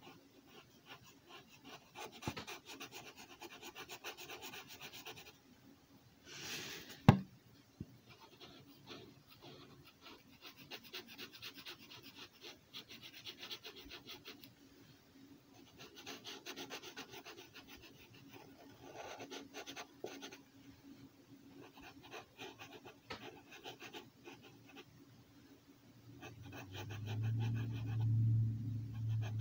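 Sharpie marker tip scratching across paper in quick short strokes, in runs of a few seconds with brief pauses, as a scale pattern is inked. One sharp tap about seven seconds in, and a low rumble near the end.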